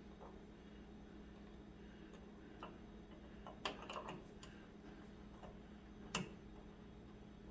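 A few faint, sharp metallic clicks from handling a helicoil insertion tool: a pair around the middle and one louder click near the end, over a steady low hum.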